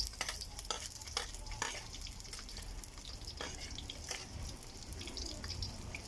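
Onions frying in hot cooking oil in a frying pan, sizzling steadily, with irregular clicks and scrapes of a utensil stirring against the pan.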